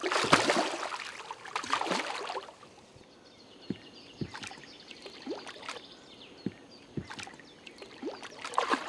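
Hooked fish thrashing and splashing at the water's surface, loudest over the first two seconds or so, then smaller splashes and sharp slaps, with another splash near the end.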